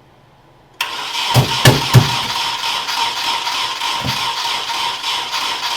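Nissan KA24DE four-cylinder engine being cranked over by its starter without catching, with backfires: three sharp bangs close together a second or so after cranking begins and one more a couple of seconds later. The backfiring is taken as a sign that the ignition timing could be off.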